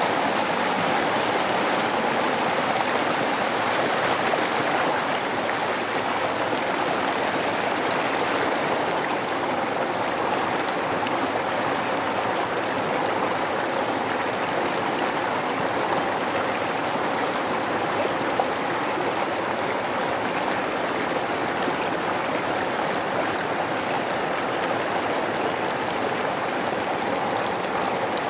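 Steady rush of a river flowing over rocks.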